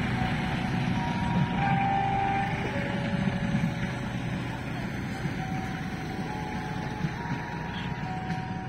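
Passenger train carriages rolling away over station points: a steady low rumble of wheels on rail, easing off as the train recedes, with several brief faint squeals scattered through it.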